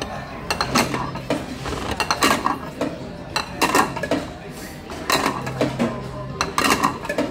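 Empty sushi plates clattering as they are taken off a stack one at a time and dropped into the table's plate-return slot, about five times at intervals of roughly a second and a half.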